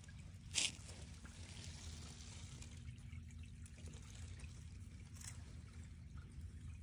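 Faint trickle of rainwater running through a rock-lined drainage channel, with one brief sharp click about half a second in.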